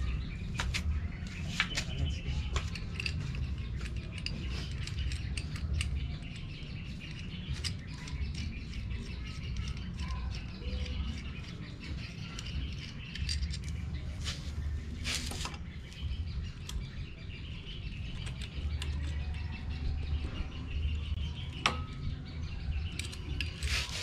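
Scattered light metallic clicks and clinks from handling an aluminium alloy motorcycle side stand and its small fittings, over a steady low rumble and faint birdsong.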